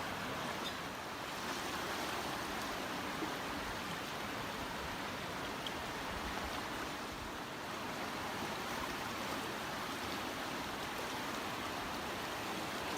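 Steady rush of flowing water, an even noise with no change in level and a few faint ticks.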